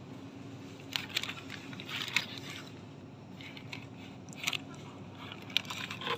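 Plastic-sleeved, card-backed cake-topper packages being flipped through by hand, crackling and clacking against each other in a few short spells, about a second in, around two seconds, and again near the end. A steady low hum runs underneath.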